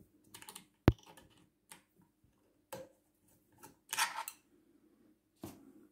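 Small metal sewing-machine parts being handled at the needle plate: scattered light clicks and taps, with one sharp click about a second in and a brief scraping rattle around four seconds in.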